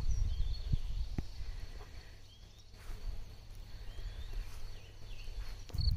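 Outdoor ambience by a pond: faint, scattered bird chirps and a steady high insect-like whine, over a low rumble. A couple of small clicks sound about a second in.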